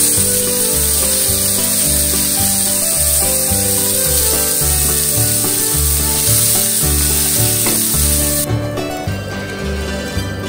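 Bison burger patties sizzling on a stone-coated griddle plate over a gas flame, with a plastic spatula scraping under them, over background music with a steady bass beat. The sizzling cuts off suddenly about eight and a half seconds in, leaving only the music.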